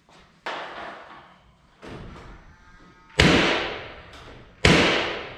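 Hammer blows on a wooden 2x8 beam, four sharp strikes about a second and a half apart with the last two loudest. Each rings on in the echo of the bare metal building.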